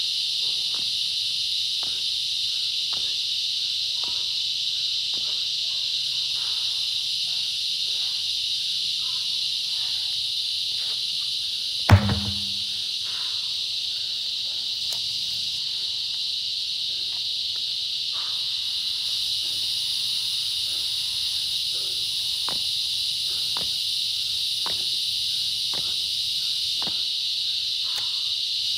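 Insects buzzing steadily, high-pitched. About twelve seconds in comes a single heavy thud as a large truck tire is flipped over and lands flat on the ground.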